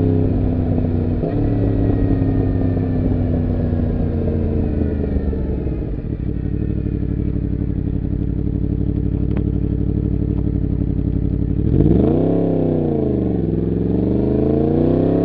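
Yamaha MT-10's crossplane inline-four engine under way. Its pitch falls slowly over the first several seconds as the bike slows, then holds steady. Near the end it rises, dips and climbs again as the throttle is opened.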